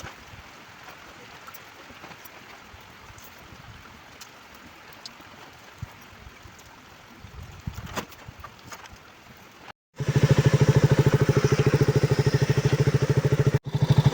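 Steady rain falling, faint, with scattered drips. About ten seconds in, a sudden cut brings a motorcycle engine idling loudly and close, with a rapid, even beat.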